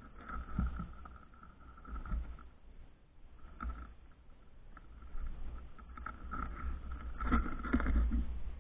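Mink feeding on cat food kibble and chicken close to the microphone: irregular crunches and soft knocks, with the loudest cluster a little before the end as it moves off along the board.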